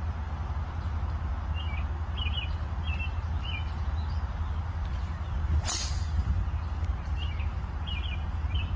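A driver striking a golf ball off the tee: one sharp crack of impact a little over halfway through. Birds chirp before and after it.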